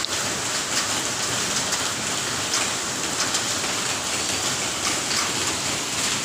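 Steady rain falling on stone paving, with an individual drop striking sharply now and then.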